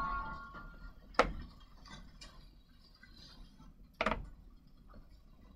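The tail of background music dies away at the start, then two sharp knocks about three seconds apart, the first a little over a second in, with faint small clicks and taps between them.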